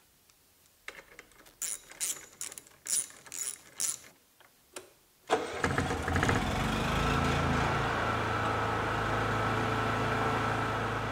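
A socket ratchet clicks in short spells as the transport handle screws are tightened. About five seconds in, the Honda EU6500is inverter generator's engine is key-started, catches at once and settles into steady running with a faint whine. It keeps running without the overload shutdown, which shows the replaced inverter has cured the fault.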